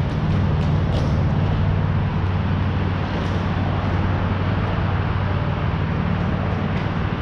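Steady low hum with a rushing noise under it, with a few faint distant clicks from sticks and ball in a ball hockey game.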